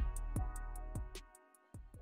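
Background music with a steady beat, fading out about a second and a half in and leaving only a few last faint beats.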